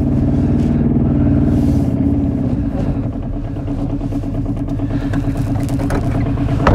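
Kubota Z482 two-cylinder diesel of an Aixam microcar running with its power restrictor removed, heard from inside the cabin as the car pulls away. The engine note is steady and pulsing and eases off slightly about halfway through.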